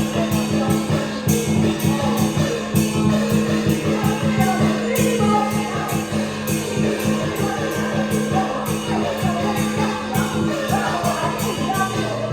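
Dragon dance music: rapid, continuous drum and cymbal strokes over a steady low tone, with a melody line moving above.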